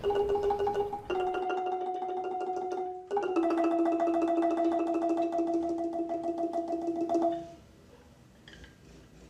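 Thai ranat ek, a boat-shaped wooden xylophone, played with two mallets in fast tremolo rolls on octaves: three held notes, each lower than the last, the longest lasting about four seconds. The playing stops about seven seconds in, leaving only a few faint clicks.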